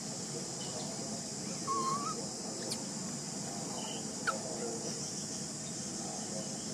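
Outdoor ambience: a steady high hiss, with one short wavering call about two seconds in and a brief chirp a little past four seconds.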